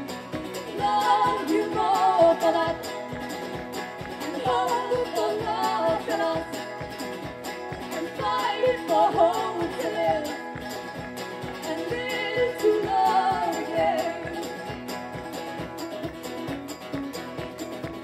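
Live band music: a steady strummed acoustic guitar rhythm with four sung phrases over it.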